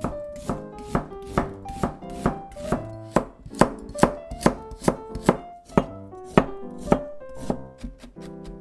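Chef's knife chopping vegetables on a plastic cutting board, carrot and then garlic being mincing-chopped, in steady strokes about two or three a second.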